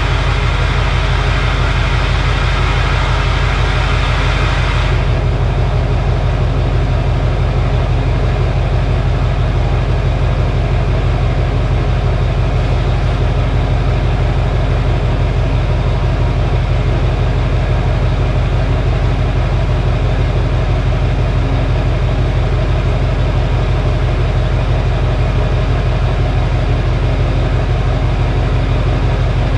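A 2006 Chevy Duramax 6.6-litre V8 turbodiesel, straight-piped, running steadily at idle with an even low rumble. A higher hiss over the engine drops away about five seconds in.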